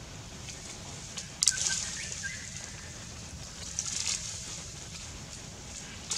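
Outdoor forest-floor ambience with a steady low rumble, a sharp crackling rustle about a second and a half in and another rustle around four seconds, with a few short high chirps between them.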